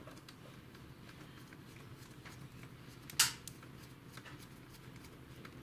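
Small screwdriver turning screws into a laptop's plastic case: faint scraping and light ticks, with one sharp click about three seconds in.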